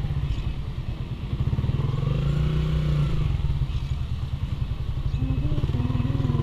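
Motorcycle engine running steadily with a fast, low pulsing exhaust note. A faint tone rises and falls about two seconds in.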